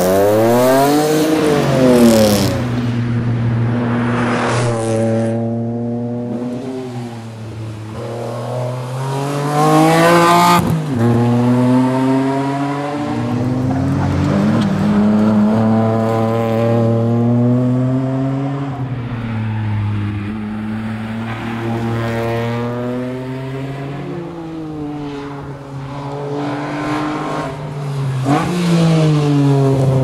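E46 BMW M3's straight-six engine at full throttle, pulling away from the start line in the opening seconds. Across several passes it climbs in pitch again and again, breaks at each gear change and falls back as it brakes and downshifts.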